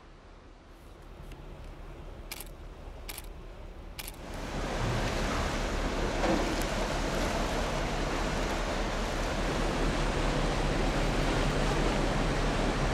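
Steady rushing noise that swells sharply about four seconds in and then holds, with a low rumble beneath. Three faint clicks come before the swell.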